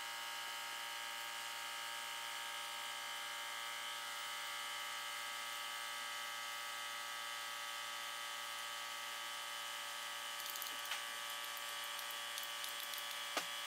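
A steady electrical hum made of many even tones, unchanging throughout, with a few faint clicks toward the end.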